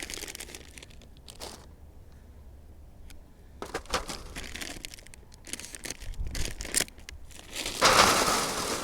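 Packaging crinkling and rustling as it is handled, in short scattered bursts, with the loudest burst near the end.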